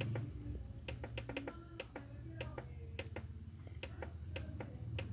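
Plastic front-panel buttons on a Korg synthesizer clicking as they are pressed to step through edit pages and set values: about a dozen sharp, irregular taps over a low steady hum.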